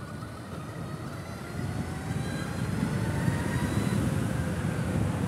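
Electric motorcycle accelerating on the road: a thin whine from the electric drive rises slowly in pitch over a steady rumble of wind and tyre noise, growing louder about a second and a half in.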